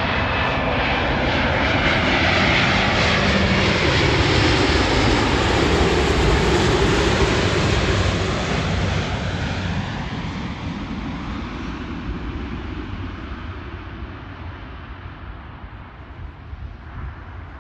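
Airbus A350-900's Rolls-Royce Trent XWB turbofan engines on landing approach, passing low and close: a loud jet rush that builds, peaks about halfway through, then fades steadily as the airliner moves away toward the runway.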